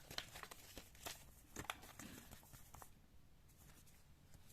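Faint handling noises: a few light clicks and rustles of packaging and paper being handled. After about three seconds it drops to near silence.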